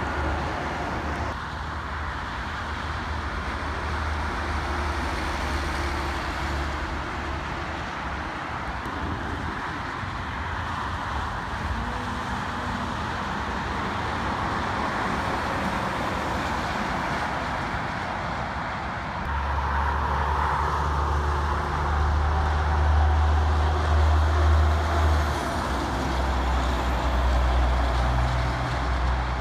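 Highway traffic with heavy diesel trucks passing: a steady rush of tyres on the road under the low drone of truck engines, which swells about two-thirds of the way through as a truck goes by.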